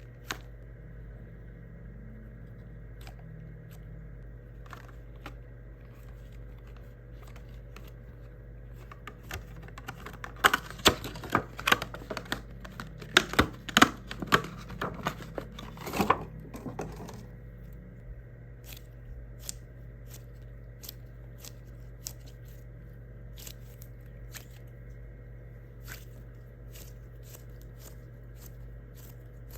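Hands squeezing and handling a squishy toy: a run of crackly, crinkling sounds for about seven seconds in the middle, over a steady low hum with a few faint clicks.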